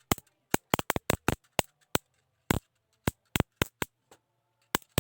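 Electric mosquito-killer bat's high-voltage mesh sparking, about fifteen sharp, irregular snaps over a faint steady hum.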